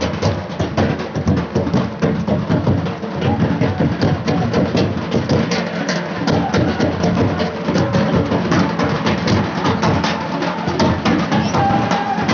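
Folk dance drumming: large hand-beaten drums in a fast, steady rhythm with dense strokes.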